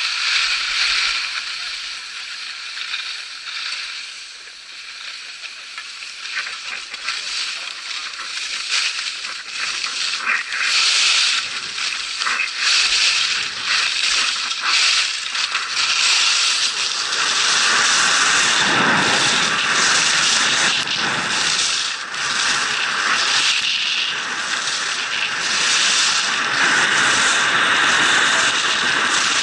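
Skis scraping and carving on hard-packed snow, with wind rushing over the microphone. It grows louder and fuller from about halfway through as the skier speeds up.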